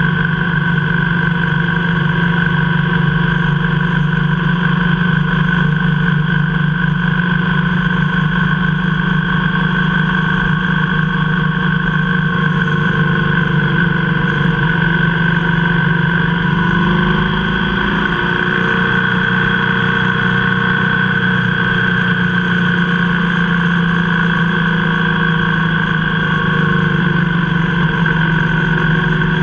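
Motorcycle engine running steadily at road speed, heard from on the bike, with a brief shift in engine pitch about two-thirds of the way through.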